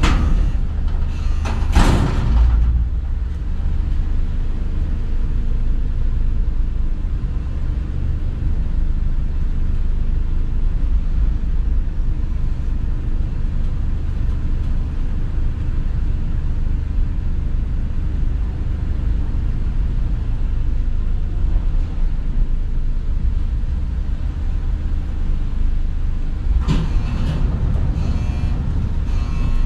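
Mechanical car lift carrying a car upward, a steady low rumble heard from inside the car. There is a sharp clunk about two seconds in, and clattering near the end as the lift arrives at its floor.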